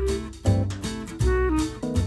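Background music: acoustic guitar strumming about twice a second over a deep bass line.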